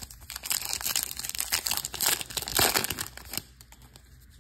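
Crinkly wrapper of a 2024 Bowman Baseball trading-card pack being torn open and crumpled by hand. The dense crackling lasts about three seconds, then dies down to light handling.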